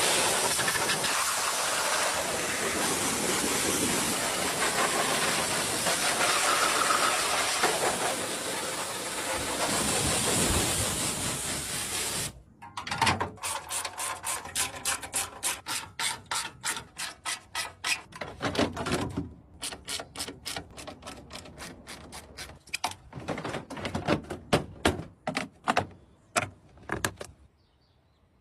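Steady loud hiss of a car-cleaning spray jet for about twelve seconds, cut off sharply, then a fast run of short rhythmic strokes, several a second, with a few pauses, dying away near the end.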